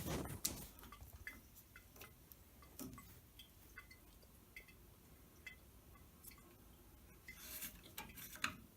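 Faint, scattered light clicks and small knocks, with a short rustling stretch near the end.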